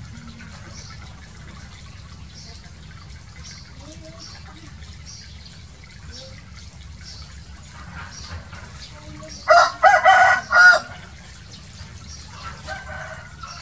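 Water running and splashing through a shallow frog pen, a steady low rush. About two-thirds of the way in, a rooster crows once, loudly and in a few quick parts. A fainter call follows near the end.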